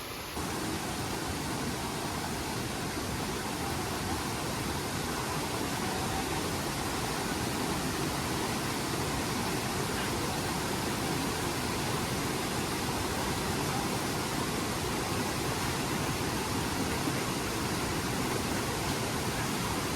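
Steady, even rush of flowing water, a stream or cascade, starting just after a cut.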